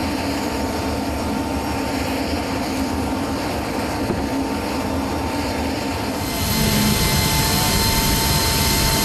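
Steady jet turbine noise from the C-17 Globemaster III on the flight line: a constant rushing with a thin whine, turning louder and brighter with extra high whines about six seconds in.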